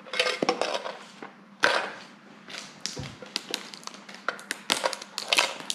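Mini-tin packaging with a cardboard back being pried and torn open by hand: an irregular run of clicks, taps and short crinkles.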